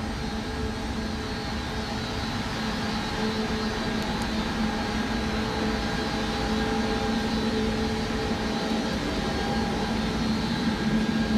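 Air handling units with fan-wall fans running in a mechanical room: a steady rushing drone with several constant hum tones, growing a little louder near the end.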